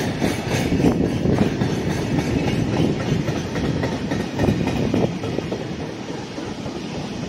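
Meitetsu Nagoya Main Line electric train running along the platform: a steady rumble of wheels on rails with scattered knocks, easing slightly near the end.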